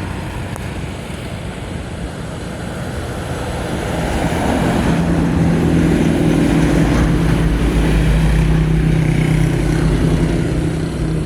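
A motor engine running steadily, growing louder about four seconds in and then holding an even hum.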